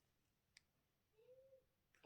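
Near silence: room tone, with one faint click about half a second in and a brief, faint tone in the second half.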